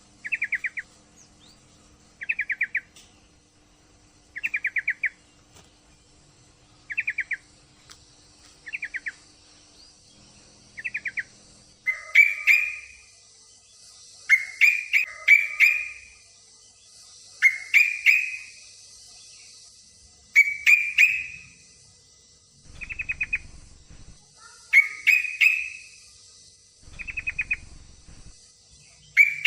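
Yellow-vented bulbul (trucukan) calling, the call of a female in breeding condition summoning a male. Short fast trills repeat about every two seconds, and from about twelve seconds in they give way to louder bubbly phrases with sharp clicks, every two to three seconds.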